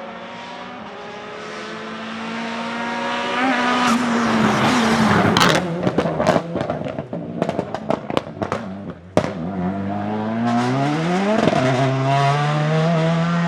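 Peugeot 308 TCR's 1.6-litre turbocharged four-cylinder engine revving up, then lifting off into a rapid string of exhaust crackles and pops that lasts about three seconds. It then accelerates hard again, with one quick upshift partway through the climb in revs.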